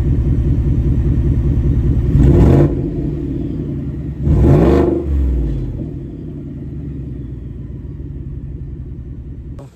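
Ford 2018 F-150's 5.0 V8 idling through a freshly fitted straight-pipe exhaust with no muffler, turned down as a dump, then blipped twice in quick revs about two and four and a half seconds in before dropping back to a steady, deeper idle. The sound cuts off suddenly near the end.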